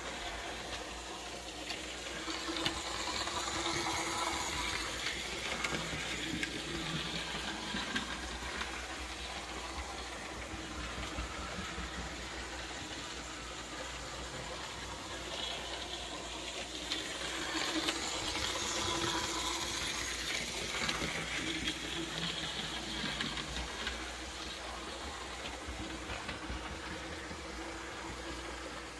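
HO scale 2-6-0 model steam locomotive running on track, a steady whirr of its small electric motor and wheels rolling on the rails. It grows louder twice as it comes round the curve.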